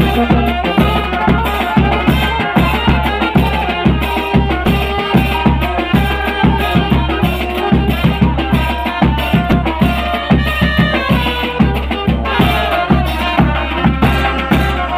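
Tanjidor band playing: held tones from the band's instruments over a steady, quick drum beat.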